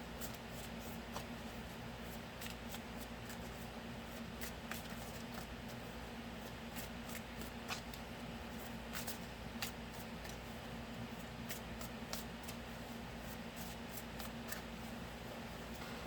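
A tarot deck being shuffled by hand: a long run of quick, light card clicks and flicks, over a steady low hum.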